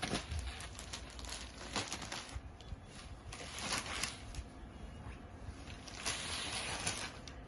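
Linen saree fabric rustling as it is unfolded and spread out by hand, in several brief bursts, the longest near the end.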